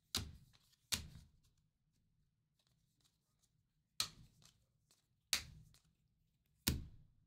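Baseball cards being flipped one at a time off the front of a hand-held stack: five short, sharp card slides, irregularly spaced, each fading quickly.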